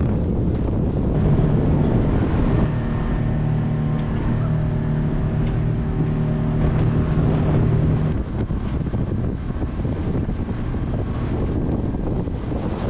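Speed motorboat at speed: a steady engine drone from about a second in until about eight seconds in, over the rush of water and spray off the hull and heavy wind noise on the microphone.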